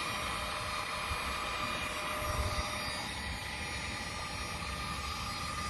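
Handheld electric heat gun running steadily, its fan blowing with a faint steady whine, as it heats a length of PVC pipe to soften it for bending.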